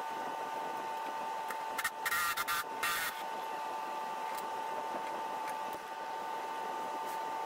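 A cordless power tool runs in three short bursts about two to three seconds in, snugging up the U-bolt nuts on a golf cart's rear leaf spring, over a steady background hum with a faint constant whine.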